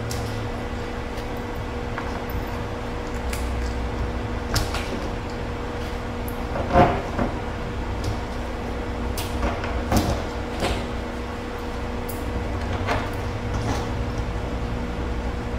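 Scattered light clicks and knocks as metal bolts and washers are handled and pushed by hand into the holes of a foosball table's wooden side apron and end panel, over a steady low hum.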